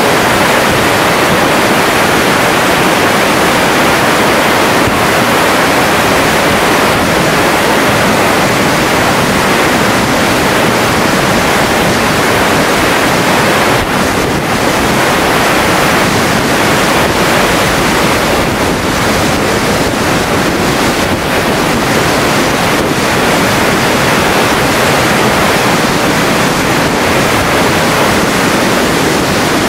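Flash flood of muddy, debris-laden water rushing across open ground: a loud, steady rushing.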